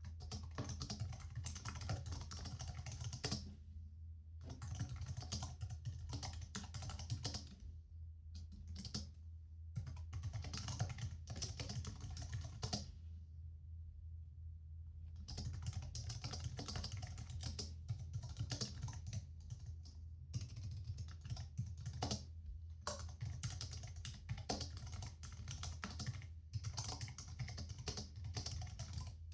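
Typing on a computer keyboard: quick runs of key clicks broken by short pauses, one lasting a couple of seconds about halfway through, over a steady low hum.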